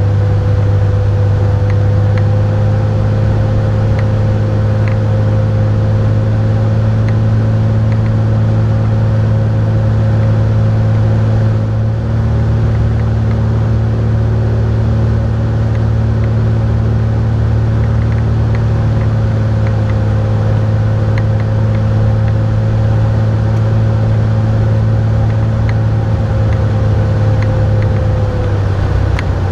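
Cessna 172 Hawk XP's engine and propeller droning steadily, heard inside the cabin on final approach. Near the end the pitch drops a little as power comes off over the runway for landing.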